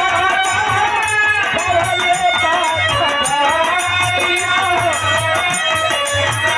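Birha folk song: a singer holding long, wavering melodic notes over a steady drum beat and a jingling rattle percussion.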